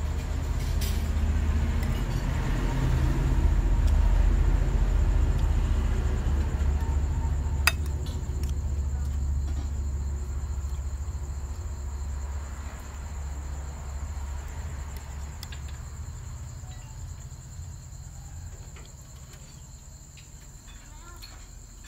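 Crickets chirping in a steady high drone, under the low rumble of a passing vehicle that swells over the first few seconds and then slowly fades away. One sharp click about eight seconds in.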